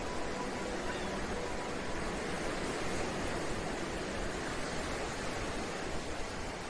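Ocean surf sound bed: a steady, even wash of waves with no distinct breaks.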